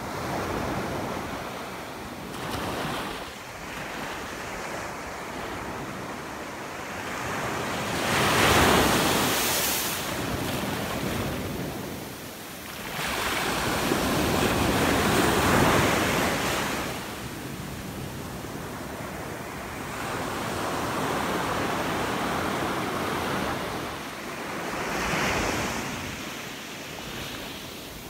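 Small waves breaking on a sandy beach and washing up the shore, rising and falling in surges every few seconds, loudest about a third of the way in and again just past the middle.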